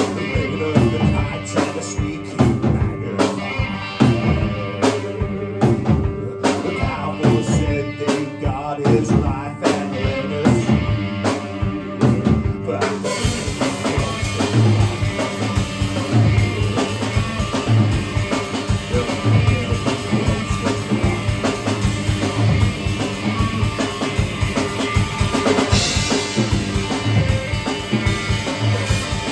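Live band playing an instrumental passage: a drum kit with bass drum and rimshots over sustained guitar and bass. About thirteen seconds in, the drumming thickens into a steady wash of cymbals over a regular bass-drum beat.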